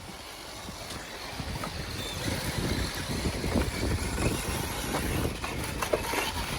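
Wind rumbling on the microphone, slowly growing louder, with scattered light clicks and crunches in the second half.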